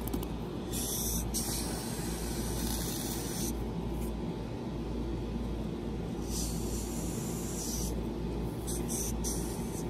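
Can of TITE FOAM insulating foam sealant spraying through its straw as expanding foam is packed into the hole around a post. It comes in three bursts: a long one starting about a second in, then two shorter ones in the second half.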